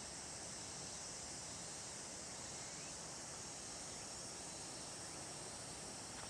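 Steady rush of river water with a constant high insect drone over it.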